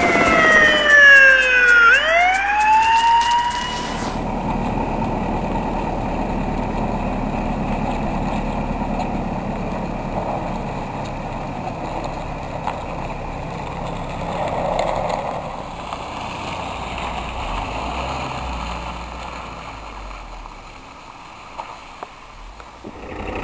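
A siren-like wail whose pitch falls and then rises, levelling off about four seconds in, followed by a steady low rumble of noise that lasts most of the time and dips near the end.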